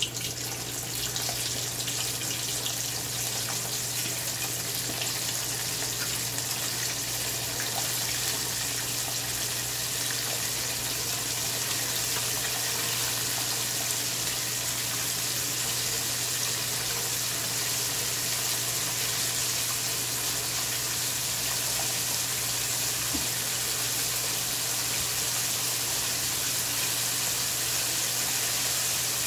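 Battered chicken wings deep-frying in a wok of hot oil: a steady, dense sizzle of bubbling oil.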